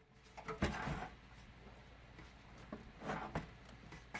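Power supply unit being jiggled and worked out of an old desktop PC case: a scatter of short knocks and scrapes, with a cluster about half a second to a second in and more near the end.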